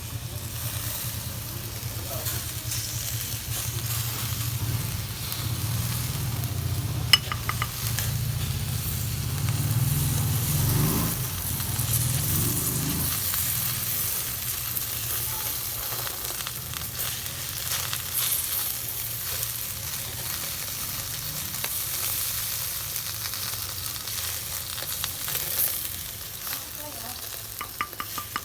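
Inasal chicken sizzling on a barbecue grill, a steady hiss, with a low rumble through the first half, one sharp click about seven seconds in and a few light clicks near the end.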